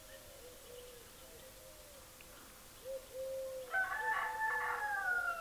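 A rooster crowing once, starting about two-thirds of the way in, the end of the crow sliding down in pitch. Softer, repeated low bird calls go on underneath.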